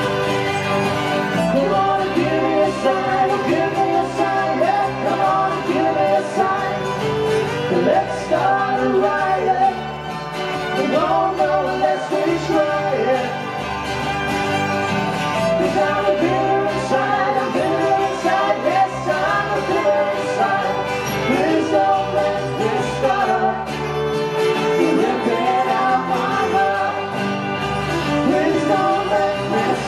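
Live band playing a song on electric guitar, acoustic guitar, bass and drums, with a woman singing lead.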